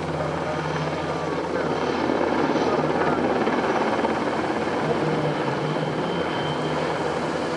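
NH90 military helicopter flying close overhead: a steady rotor beat with engine noise, growing a little louder about two seconds in.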